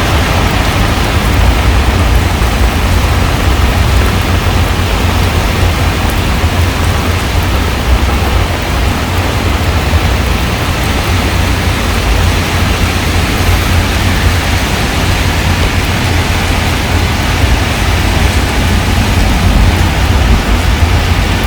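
Heavy, steady rain falling on a pond's water surface, a dense even patter with a deep low rumble underneath.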